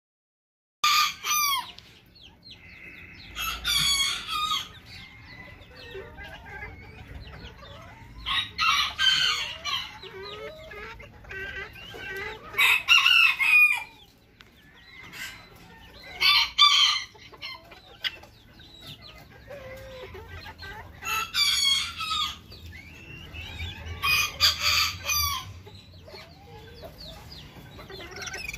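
Bantam roosters crowing, starting about a second in, about seven crows a few seconds apart, with hens clucking and calling more quietly between them.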